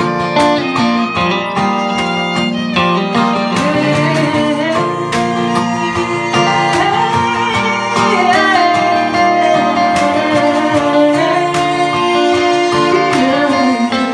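Live acoustic band music: a fiddle plays a sliding melody over strummed acoustic guitar.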